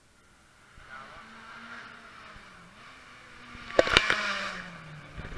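Rally car engine approaching, growing louder from about a second in, with two sharp cracks about four seconds in.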